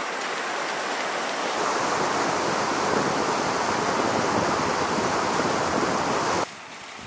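Fast mountain river rushing over stones, a steady even noise of water that cuts off suddenly about six and a half seconds in.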